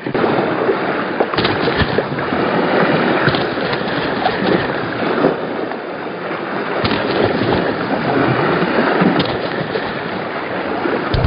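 Sea water washing and gurgling against the shore rocks in a steady rush, with wind on the microphone.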